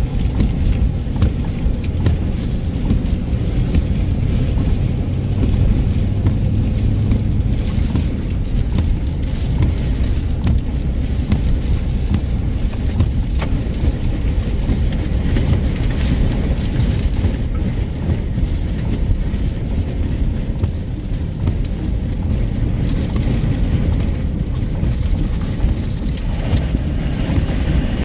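Strong wind and rain buffeting a vehicle, heard from inside: a steady low rumble with a hiss of rain over it.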